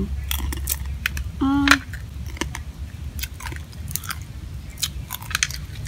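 Grilled crab being cracked apart by hand and chewed: a scattered series of sharp crackles and clicks from the shells.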